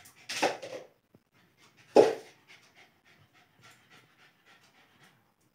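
Lhasa Apso puppy panting in quick, short breaths, about three to four a second. A few louder noises come in the first second, and one loud sudden noise about two seconds in.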